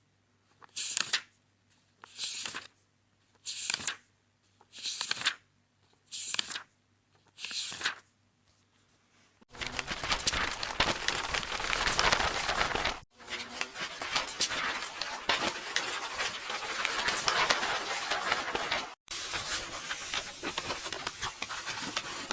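Book pages turning one at a time, six separate dry paper flips about a second and a half apart. Near the middle it changes to dense, continuous paper tearing with fine crackling, in three long stretches broken by two brief gaps.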